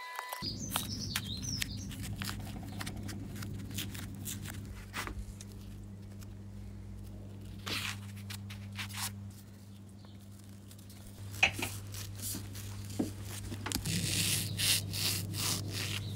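A steady low electrical hum that starts suddenly, with scattered clicks and rubbing, rustling handling noises over it, busiest near the end.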